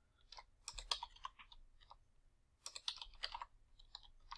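Computer keyboard being typed, faintly: two short runs of quick keystrokes, about a second in and again about three seconds in, with a few scattered keystrokes near the end.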